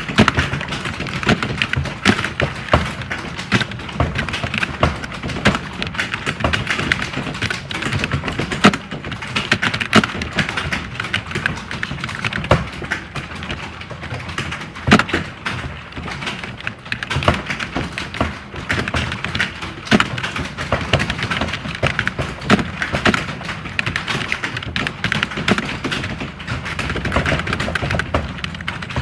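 Many computer keyboards being typed on at once, as in a typing-test hall: a dense, steady clatter of overlapping key clicks with no pauses.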